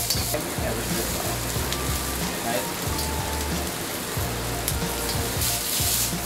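Broccoli sizzling steadily in a hot oiled wok, with background music and a steady bass line underneath.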